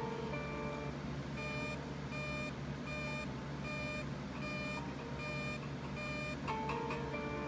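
A regular series of about eight short, high electronic beeps, roughly 0.7 s apart, ending about a second before the close, with a few sharp clicks after them.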